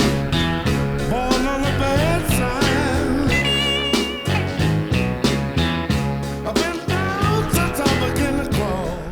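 Rock music soundtrack with a steady drum beat and bending guitar lines, dropping away at the very end.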